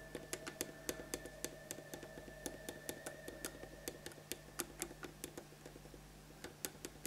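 Faint, rapid, irregular light clicks and taps as a sculpting tool dabs and flattens a blob of green stuff epoxy putty on a statue, over a steady hum whose thin higher whine stops about halfway through.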